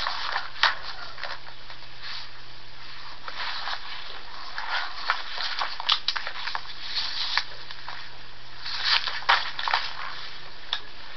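Background noise of a home voice recording: a steady hiss and a faint low hum, with scattered soft crackles and clicks.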